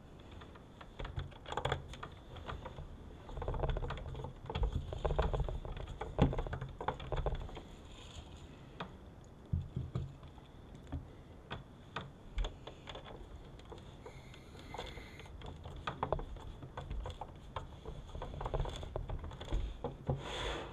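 Hands working small screws and parts on the sheet-metal case of a car's video entertainment player, making irregular light clicks and taps with soft low knocks against the table.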